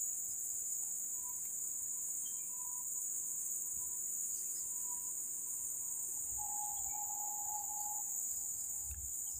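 Steady high-pitched chorus of insects, crickets or cicadas, buzzing without pause.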